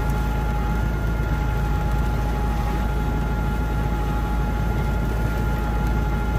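Schuler 4510 TMR feed mixer running steadily at working speed, driven by a tractor, as it processes the bales with its newly replaced main screw and knives. A deep, even engine drone with a steady whine on top.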